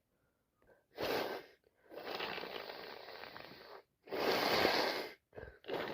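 A woman with a heavy head cold sneezing and blowing her congested nose: a sharp burst about a second in, then long, noisy blasts of breath through the nose.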